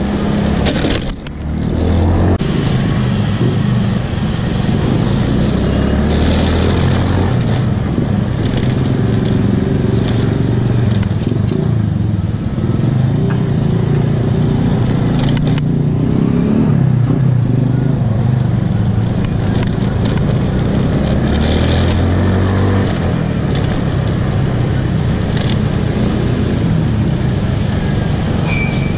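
Honda Scoopy 110cc scooter's single-cylinder four-stroke engine running while ridden in traffic, its pitch rising and falling with the throttle, over steady road noise.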